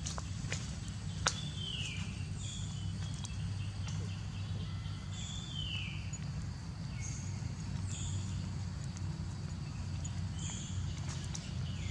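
Short, high chirping animal calls recur every couple of seconds, two of them falling in pitch, over a steady low hum. A sharp click comes a little over a second in.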